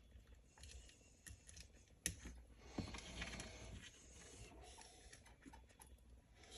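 Faint handling noises of small screws and parts on an RC differential case: scattered light clicks, a sharper click about two seconds in, and a brief scrape about a second later.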